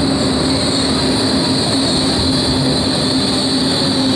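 CRH5 high-speed electric train pulling in alongside the platform: a steady rushing with a high, even whine and a lower steady hum.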